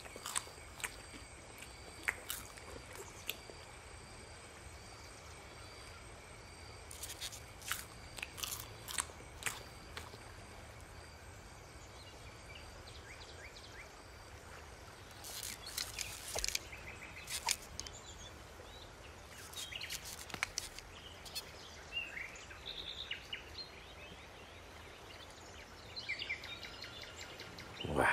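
Quiet outdoor nature ambience with faint, thin, steady high tones, scattered short crunches, and small bird chirps in the second half.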